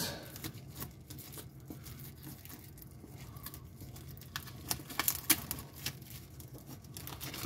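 Shrink-wrap film on a cardboard model kit box being cut and picked at with a hobby knife: faint crinkling and scraping of the plastic, with a few sharp ticks between about four and a half and five and a half seconds in.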